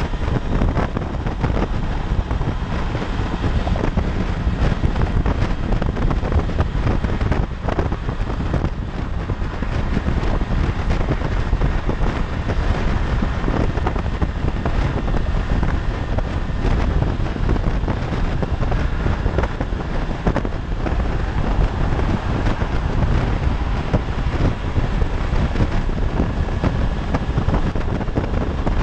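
Steady wind rush buffeting the microphone of a motorcycle at freeway speed, with the 2016 Honda CB500X's engine and tyre noise under it.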